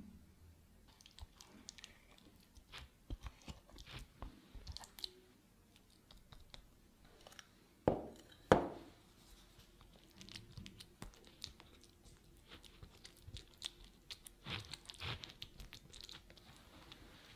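Thick caramel walnut nougat being worked into a pastry-lined tart tin: scattered small sticky clicks and crackles, two thuds about eight seconds in, then sticky, wet clicking and scraping as a silicone spatula spreads the nougat.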